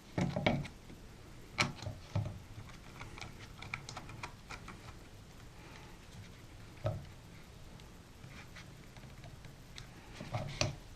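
Faint handling sounds of a camcorder being fitted and screwed onto a SLIK Mini II mini tripod's 1/4-20 mounting screw: scattered light clicks and knocks of plastic and metal parts, a few a little louder than the rest.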